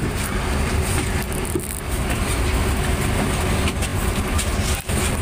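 Low, steady rumble of a vehicle's engine and running noise, heard from inside the cabin.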